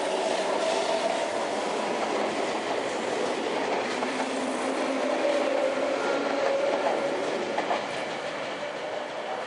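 Sagami Railway electric commuter train pulling out of a station, wheels running and clattering over the rails with a faint whine that shifts in pitch. The sound eases off near the end as the last car goes by.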